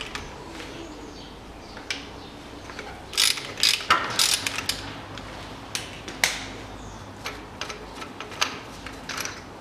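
Ratchet wrench on a long extension undoing a lower bolt on the engine front: irregular ratchet clicks and metal clinks, loudest in a cluster about three to four and a half seconds in and again at about six seconds.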